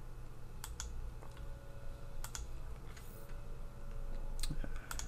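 Computer mouse clicking: a handful of short, sharp clicks, some in quick pairs like double-clicks on folders, over a low steady hum.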